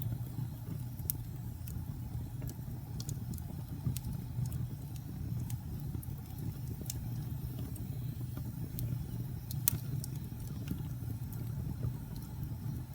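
Wood fire burning with a steady low rumble and scattered sharp crackles and pops, a few of them louder.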